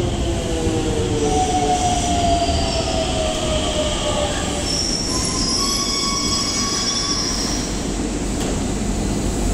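Hokuso Railway 7300-series electric train braking to a stop at the platform. The motor whine falls in pitch as it slows, and a high brake squeal follows from about five to seven seconds in, over the rumble of the wheels.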